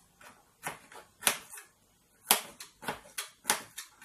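Kitchen knife chopping an onion on a plastic cutting board: a string of about ten sharp, irregularly spaced knocks.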